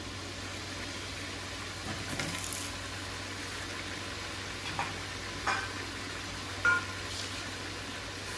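Pieces of meat and whole spices sizzling steadily in hot oil in a steel pot, with a few short clicks in the second half.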